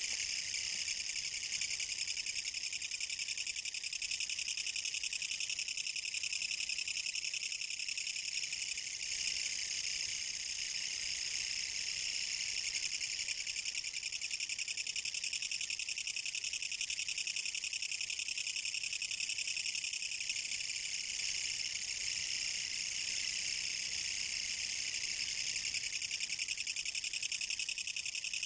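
Kutsuwamushi (Japanese katydid, Mecopoda niponensis) stridulating: a continuous high rasping buzz of very rapid pulses, going on without a break.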